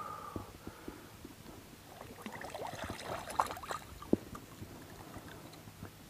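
Water splashing and dripping as a largemouth bass is released over the side of a boat and kicks away, with two sharper splashes around three and a half and four seconds in.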